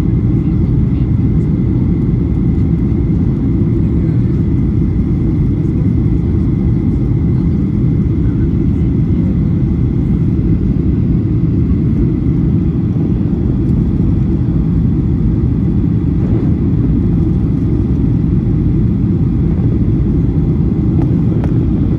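Steady low rumble of a Boeing jet airliner's engines and airflow, heard from inside the passenger cabin, with a faint steady whine above it.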